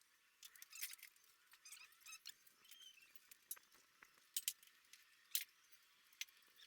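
Faint scattered metallic clicks and taps of hand tools and small engine parts being handled, with a couple of sharper clinks past the middle.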